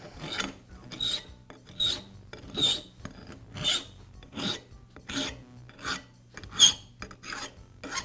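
Hand file rasping back and forth across the cut end of a coiled steel drain auger cable held in a vise, deburring the cut. About ten even strokes, a little over one a second.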